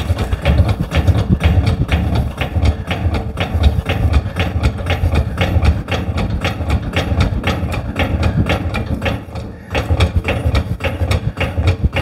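A machine running with a fast, even clatter over a low hum, dipping briefly about three quarters of the way through.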